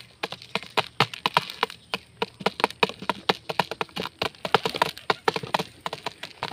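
Pigeons pecking lentils out of a plastic jar: an irregular run of sharp clicking taps of beaks on the plastic and the lentils, several a second.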